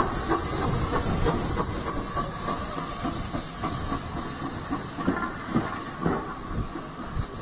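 Small industrial saddle-tank steam locomotive moving slowly, with a steady hiss of steam over a low, uneven rumble.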